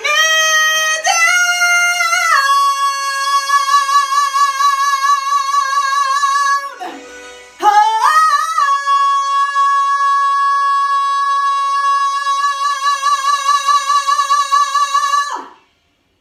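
A woman singing alone without accompaniment, belting the final high notes of a show tune: a few short rising notes, one held note, a breath, then a slide up into a long, high note with vibrato held for about seven seconds that cuts off sharply near the end.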